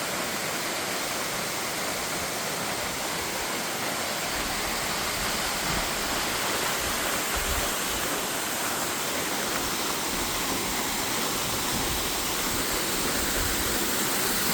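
Steady rush of a mountain waterfall, South Clear Creek Falls, with low gusts of wind on the microphone from about four seconds in.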